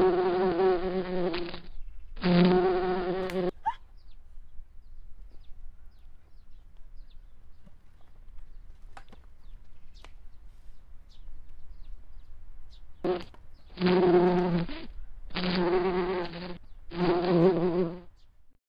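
An insect buzzing in bursts of about a second each at a steady pitch: three near the start, then a stretch of only faint ticks, then four more near the end.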